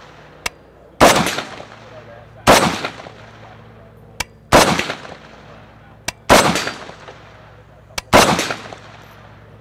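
AK-pattern rifle fired in slow semi-automatic single shots, five in all, about one and a half to two seconds apart. Each shot carries a fading echo. A fainter, sharp snap comes just before four of them.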